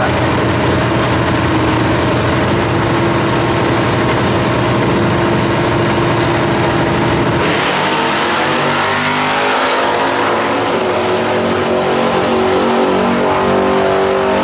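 Two drag-racing engines, a modified Chevrolet S10 pickup and a classic muscle car, held at high revs on the starting line. About seven and a half seconds in they launch, and the engine note climbs steadily in pitch as both cars accelerate hard down the strip.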